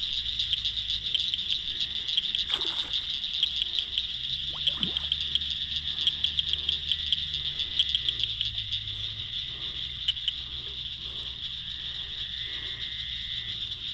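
A steady, high-pitched insect chorus with a fast pulsing texture, over a low steady hum.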